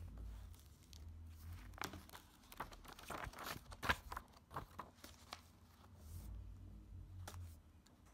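Sketchbook paper being handled and a page turned over: rustling and crisp crackling, busiest in the middle seconds, with a single tap near the end.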